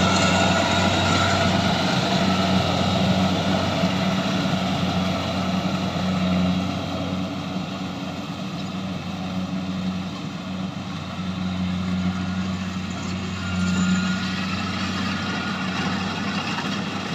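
Rice combine harvester's diesel engine running steadily at a constant pitch, with the noise of the machinery over it; the level swells a little a few times.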